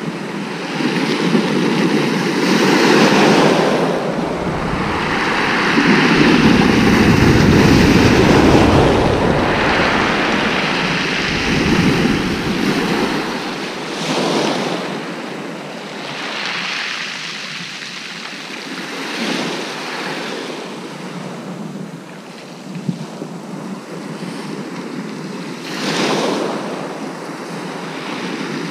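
Rough sea breaking and washing up a shingle beach, the surf swelling and falling back every few seconds. Wind buffets the microphone, strongest in the first half.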